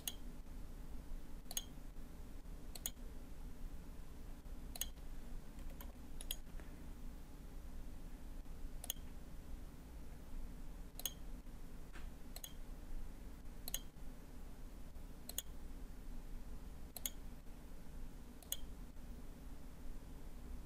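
Computer mouse clicking, about a dozen single clicks spaced a second or two apart, over a faint steady low hum.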